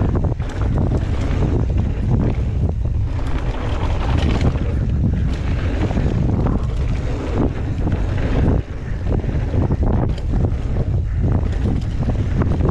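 Wind buffeting the microphone on a mountain bike riding a trail, with tyre rumble and frequent short knocks and rattles from the bike over rough ground.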